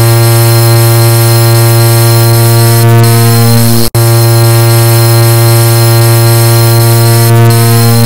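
Car horn sounding in one continuous, very loud, harsh blare. It cuts out for an instant about four seconds in and starts again, the sound of a looped horn clip.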